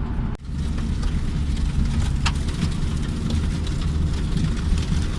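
Steady low rumble of a campervan on the move, engine and tyre noise heard from inside the cab, with a short break about half a second in.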